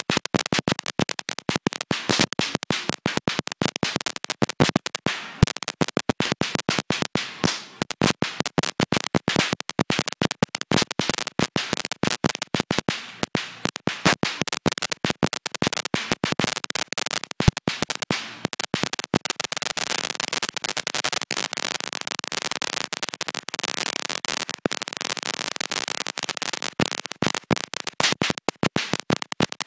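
A long string of firecrackers going off: rapid, irregular sharp cracks that thicken into a dense, continuous crackle about two-thirds of the way through.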